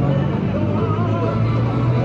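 Music with a singing voice over a steady, heavy bass, loud and continuous.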